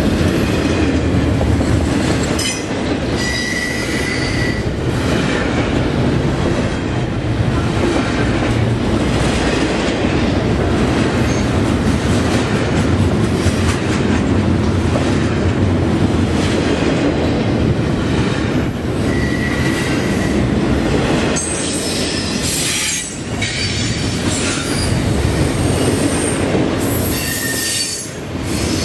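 Double-stack intermodal freight cars rolling past close by: a steady, loud rumble and clatter of steel wheels on rail, with brief high-pitched wheel squeals now and then.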